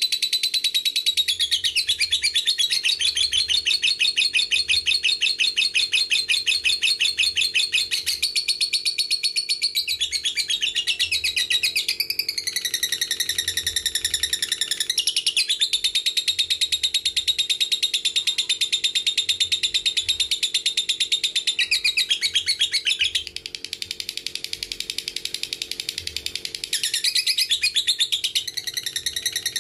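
Lovebird's long 'ngekek' song: a fast, unbroken chattering trill of rapid high notes. It drops quieter for a few seconds past the middle, then comes back up near the end.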